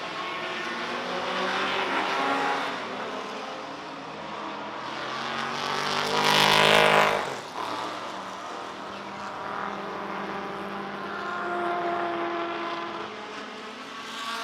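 Classic saloon racing cars passing at speed with engines at high revs, one after another. The loudest pass comes about six to seven seconds in, with quieter cars before and after.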